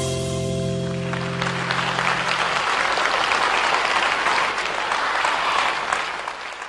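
Audience applause rising as the song's final held chord dies away in the first couple of seconds, then the clapping fades out near the end.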